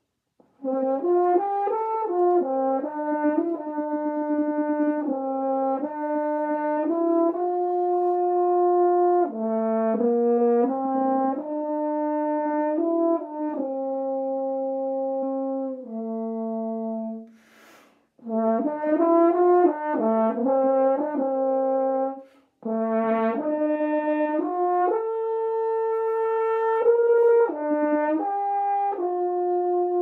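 Solo French horn playing a melody of mostly held notes, one line at a time, starting about half a second in. It breaks off twice between phrases, the first time with a short hiss of breath a little past halfway.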